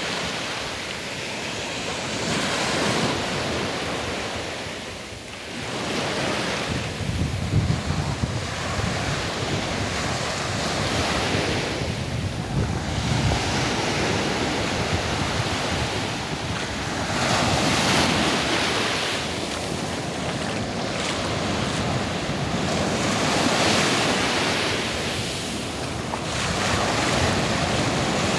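Small waves breaking and washing up a sandy beach, the surf swelling and falling every few seconds. Wind buffets the microphone with low rumbles, strongest about seven seconds in.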